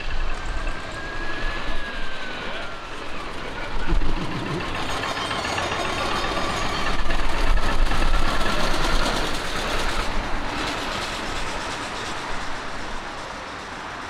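Veteran car engines from the early 1900s chugging past at low speed, a fast, even mechanical beat like a stationary engine, loudest around the middle.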